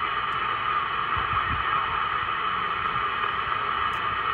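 Steady hiss of band noise from a President Lincoln II+ CB radio's speaker, receiving on lower sideband with no station coming through: the open channel between skip transmissions.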